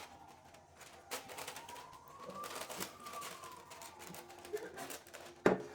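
Scattered light clicks and taps of baking utensils against a cake pan, with one sharp knock near the end.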